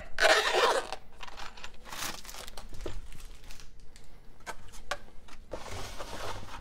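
Rustling and light knocks of unpacking by hand: a zippered goggle case is set down and a cardboard box and its packing are handled. There is a louder rustle at the start and another about two seconds in.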